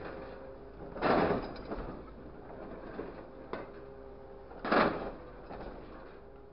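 Hydraulic grapple truck working a load of scrap metal: a steady machine hum, with two short loud noisy bursts, one about a second in and one near five seconds, and a sharp click between them.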